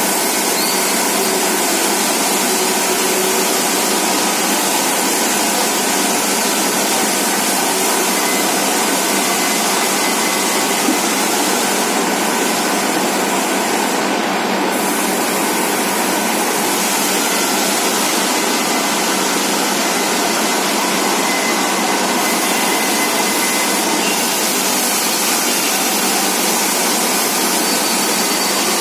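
All-geared lathe, retrofitted for CNC, running: a steady machine noise with a faint constant whine.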